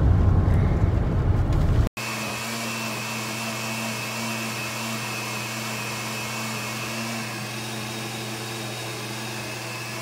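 Low road rumble inside a moving car, cut off sharply about two seconds in by a countertop blender running steadily as it blends a fruit smoothie, a steady motor hum with a high whine.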